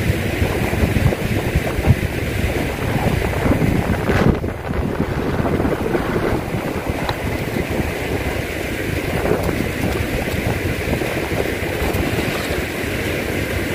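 Steady, noisy rush of falling water from a nearby waterfall or water spout, with a low rumble.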